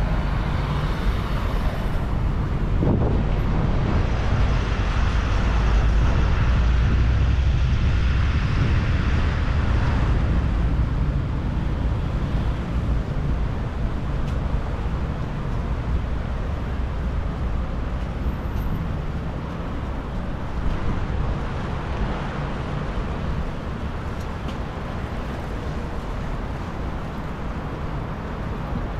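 Road traffic on a city street: cars passing with engine and tyre noise. It swells a few seconds in, eases after about ten seconds, and settles into a steady traffic hum.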